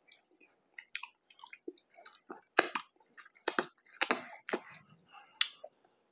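Close-up mouth sounds of a man eating a burger: chewing with irregular wet smacks and clicks, busiest in the middle stretch, with his fingers going to his mouth.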